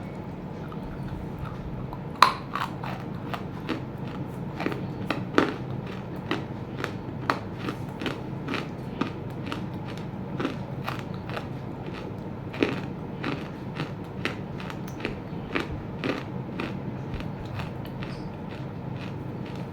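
Roasted edible clay being bitten and chewed: a loud crisp crack about two seconds in, then a long run of short dry crunches every half-second or so, over a steady low hum.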